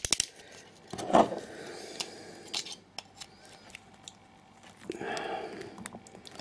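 Small metal clicks and scrapes of a multi-tool working at the C-clip of a Euro lock cylinder, with a longer scrape about a second in and another near the end.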